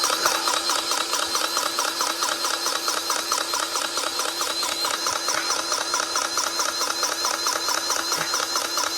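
Grease gun pumping grease into a skid steer's track tensioner fitting to tighten a loose track: a steady mechanical pulsing at about seven strokes a second with a wavering whine.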